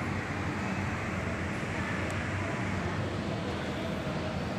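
Steady low rumbling background noise with a faint hiss and no distinct events.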